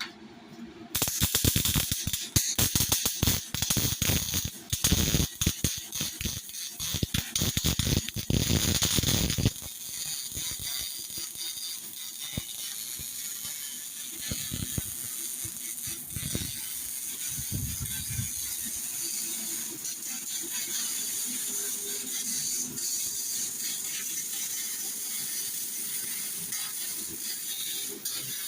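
MIG welding arc crackling: a loud, dense, rapid crackle from about a second in until about ten seconds, then a quieter, steadier hiss with scattered crackles.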